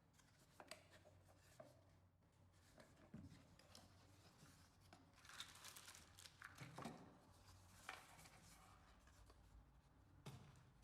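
Near silence with faint, scattered clicks and rustling of something being handled.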